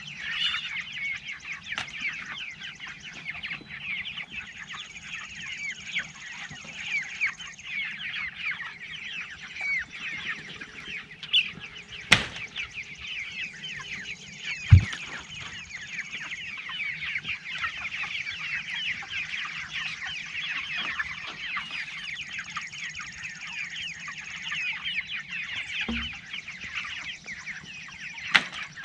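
A flock of four-week-old meat chickens peeping and chirping continuously, many small calls overlapping, the birds waiting for their feed, which was taken out overnight. A few sharp knocks stand out about twelve and fifteen seconds in.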